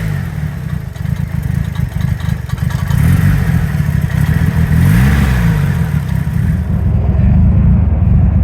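Nissan SR20 four-cylinder engine running at idle, with one brief rev about five seconds in. The idle is rough, the complaint being diagnosed on this car.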